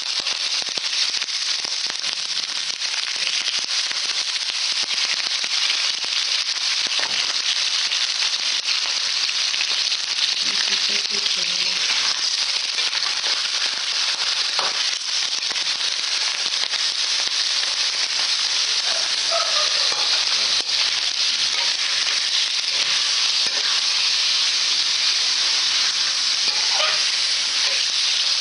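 Chicken pieces sizzling steadily in hot olive oil in a steel wok, with a few sharp clicks of a metal spatula against the pan as they are turned.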